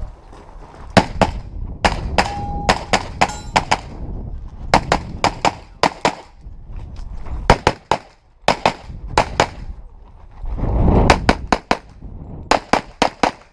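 Rapid strings of pistol shots from a Glock during a USPSA practical pistol stage: quick pairs and bursts of shots separated by short pauses as the shooter moves between shooting positions.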